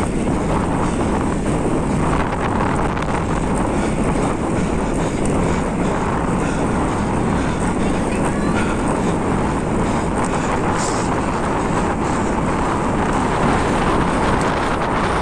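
Steady rush of wind on the microphone, mixed with road noise, from a camera moving at riding speed.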